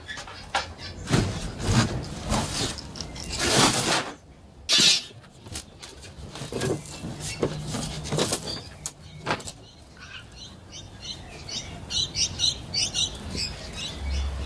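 Knocks, scrapes and creaks of plywood crate panels being pried off and pulled away, in irregular bangs and rustles. In the last few seconds, small birds chirp repeatedly.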